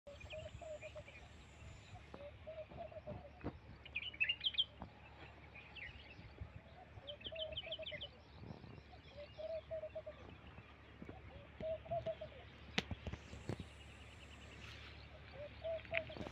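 Birds calling: a low call of about a second, repeated every two seconds or so, with quick series of high chirps over it.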